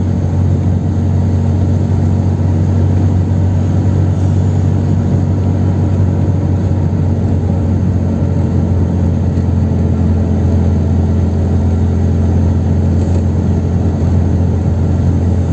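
Chevrolet Kadett 1.8 four-cylinder engine and tyre noise at a steady highway cruise: an even low drone that holds steady without revving up or down.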